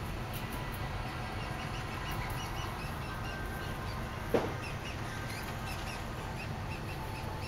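A steady low hum with faint, quick, high-pitched chirps coming in small clusters throughout, and one sharp knock about four and a half seconds in.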